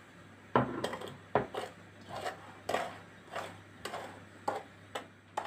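Metal spoon knocking and scraping against an enamel bowl while stirring flour into a stiffening shortcrust dough, a stroke about twice a second, starting about half a second in.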